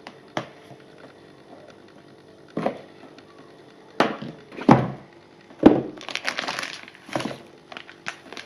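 Cardboard box of a rifle scope being opened and handled on a wooden desk: a handful of sharp knocks and taps, then a couple of seconds of scraping rustle a little past the middle as the inner box slides out.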